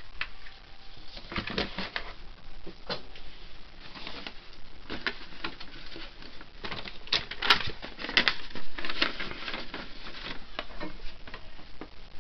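Paper rustling and crinkling, with irregular small clicks and knocks, as a folded sheet of printed photos is handled and opened out, louder for a few seconds past the middle.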